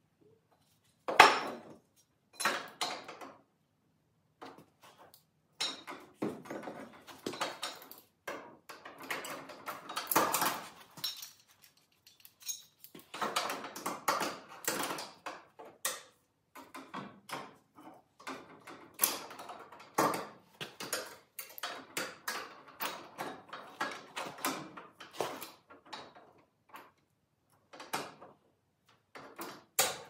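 Metal hand tools and clamps clinking and knocking against a steel door frame: an uneven run of metallic clicks and clatter, with a sharp knock about a second in.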